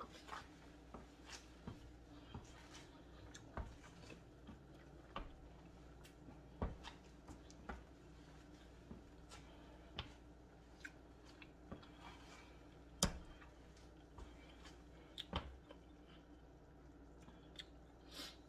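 A person chewing a mouthful of shrimp and grits with the mouth closed: scattered soft lip smacks and mouth clicks at irregular intervals, over a low steady room hum.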